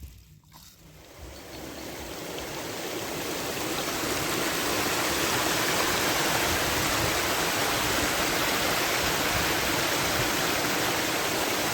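Steady rush of flowing water that swells over the first few seconds and then holds level.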